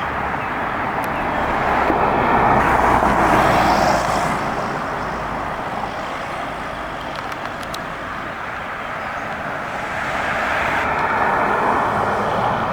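Road traffic noise: a car passes about two to four seconds in, the noise eases, and another swells up near the end.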